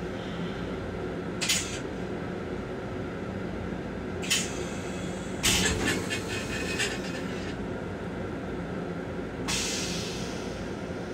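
Running noise of a Long Island Rail Road M7 electric railcar heard inside its small restroom: a steady low rumble with a faint hum. It is broken by several brief clacks and rattles, a cluster of them about halfway, and a short hiss comes up near the end and fades.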